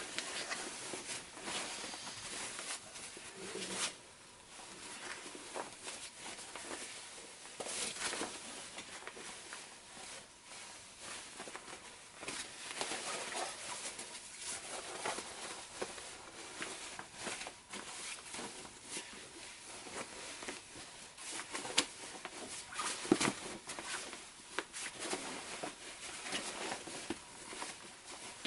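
Fabric rustling and brushing in irregular handfuls, with small soft clicks, as a sewn jacket is pulled through a small opening to turn it right side out.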